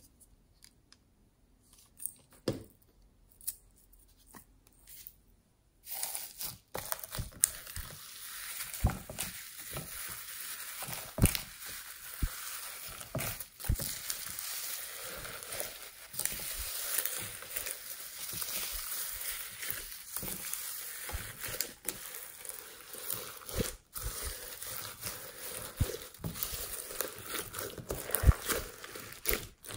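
Hands kneading and squeezing pink slime packed with foam beads (floam) and shredded strands, making a dense crackling and crinkling with sticky squishes and many small pops. The first few seconds hold only a few soft clicks and knocks, and the crackling starts about six seconds in.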